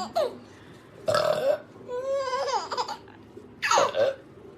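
A person burping loudly, with a small child laughing in response between the burps.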